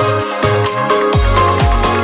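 Electronic dance music with a steady beat and deep bass notes that drop in pitch on each beat.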